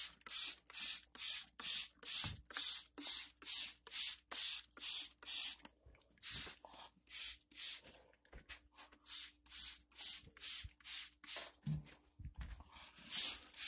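Plastic trigger spray bottle misting water onto houseplant leaves: quick repeated squirts of hiss, about two a second, with a few short breaks partway through.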